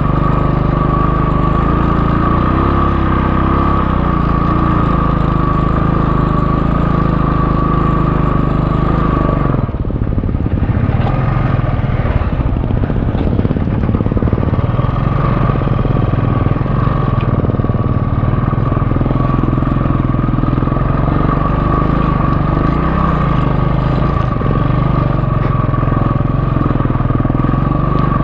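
Royal Enfield Classic 350 single-cylinder motorcycle engine running steadily as the bike is ridden over loose sand. Its note changes for a couple of seconds about ten seconds in, then settles back.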